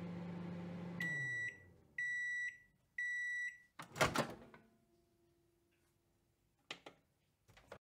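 Microwave oven running with a low hum that winds down about a second in, then three evenly spaced high beeps signalling the cycle is done. About four seconds in the door pops open with a loud clack, and two lighter clicks follow near the end.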